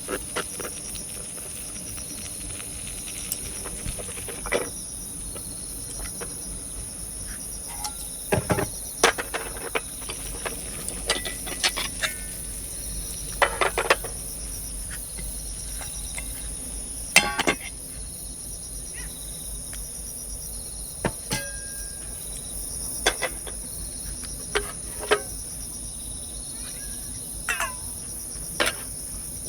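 A steady high-pitched insect chorus runs throughout, with scattered sharp clicks and knocks on top, the loudest of them around the middle. A few short chirping calls come near the end.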